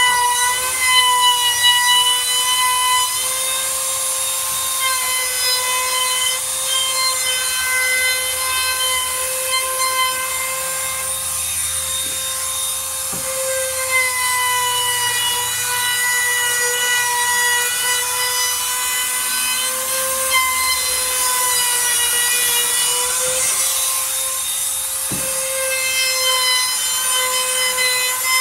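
Ridgid compact laminate (trim) router with a half-round bit running at a steady high whine while it cuts a rounded edge along the wooden face frame. The pitch wavers slightly as the bit bites into the wood.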